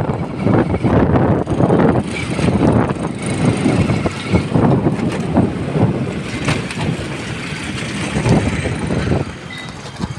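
Road and wind noise of a moving vehicle, a dense, uneven rumble that eases a little near the end.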